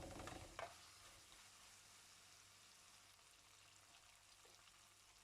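Faint sizzling of chicken cooking in a yogurt and spice masala in a karahi, with a couple of light knocks in the first second, then falling to near silence with a low hum.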